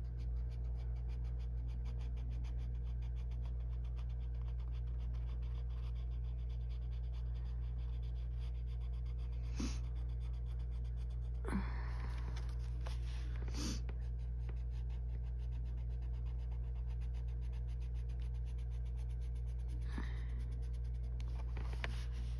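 Colored pencil scratching on coloring-book paper in short repeated shading strokes, over a steady low hum. A few soft knocks and a brief rustle come near the middle, when the hand lifts off the page.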